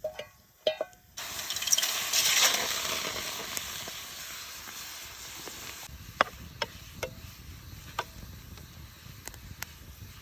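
Food hitting a hot pan over an open fire: a sudden loud sizzle about a second in that slowly dies down to a steady frying hiss with scattered pops and crackles. A few short metallic clinks come just before the sizzle.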